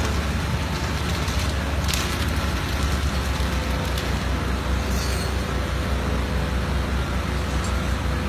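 Steady, low engine rumble of a running diesel machine, with a couple of faint clicks.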